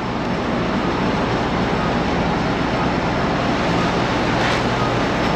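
Diesel engine of a farm loader running steadily, with a constant low drone, as it scoops feed.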